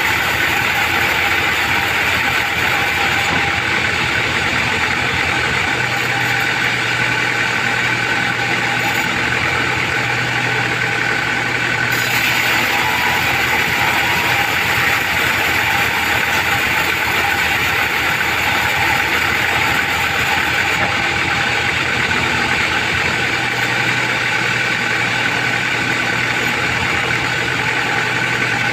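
Vertical band sawmill running, its blade ripping lengthwise through a trembesi (rain tree) hardwood beam: a loud, steady mechanical noise with a faint hum.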